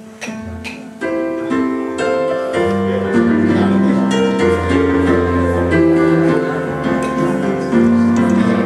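Keyboard playing slow, held chords, swelling louder about a second in.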